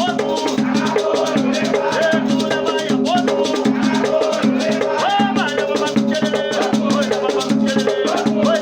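Batuque ritual music: hand drums and shaken rattles playing a steady, driving rhythm, with voices singing over the percussion.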